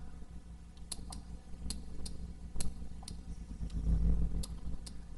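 Computer mouse clicking, about eight sharp clicks at irregular spacing, over a low steady hum, with a brief low rumble about four seconds in.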